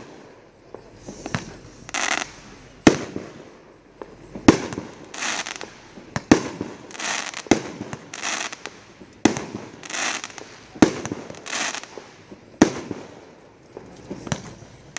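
Power Source Fireworks 'Possessed' 400-gram crackle cake firing shot after shot: a sharp bang roughly every second and a half, each followed by a short burst of crackling from the breaking stars.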